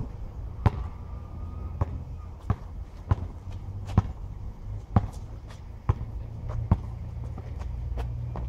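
Basketball dribbled on an asphalt court: sharp single bounces at an uneven pace of about one a second, over a steady low rumble.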